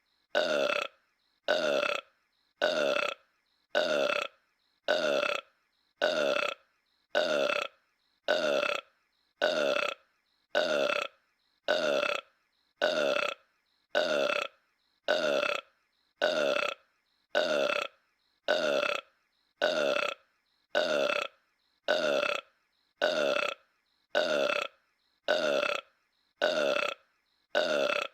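A cartoon character's burp, the same short clip looped over and over: one burp about every second, each lasting about half a second, with silence in between.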